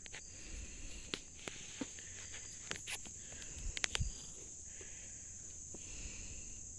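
Steady high-pitched chorus of insects, with scattered light clicks and rustles over it and a few soft bumps about four seconds in.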